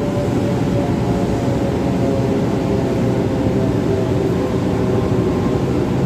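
EOT crane hoist motor and gearbox running at slow speed, turning the hoist drum, a steady mechanical drone with faint steady whining tones over it.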